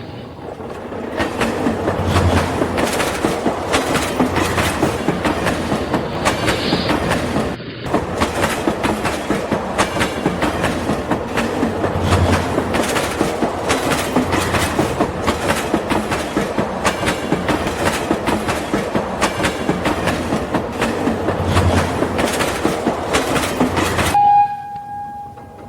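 A train clattering along its track in a fast, even run of clicks, with a brief break about eight seconds in.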